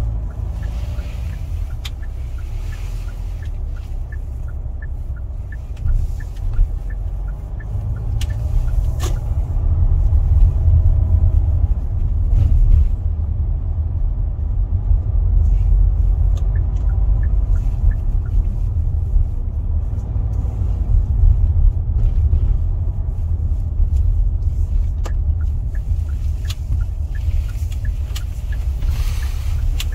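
Car cabin sound while driving in town: a steady low rumble of engine and road that grows louder from about eight seconds in. A light, evenly spaced ticking comes and goes over it.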